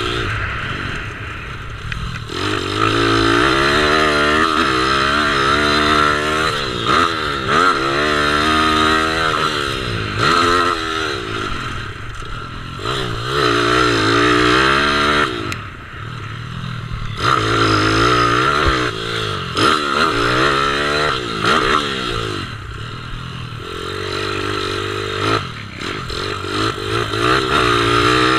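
Kawasaki KLX110 mini bike's single-cylinder four-stroke engine revving up and down repeatedly under riding load, its pitch climbing and falling through each stretch and dropping off briefly every few seconds as the throttle is closed for corners.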